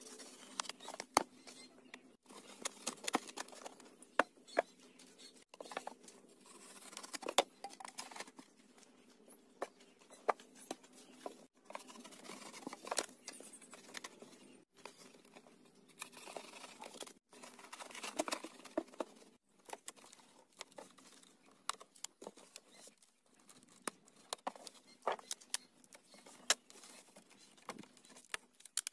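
Bricks and flat slabs being handled and set on a brick stove top: irregular clinks, knocks and scrapes of masonry on brick. The sound drops out abruptly several times.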